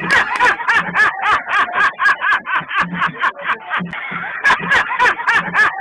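A person laughing hard in quick, repeated bursts, about five a second, with a short held stretch about four seconds in.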